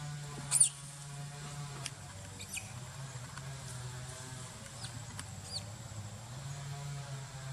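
Young macaque giving a few short, high, falling squeaks, the loudest about half a second in, over a steady low hum.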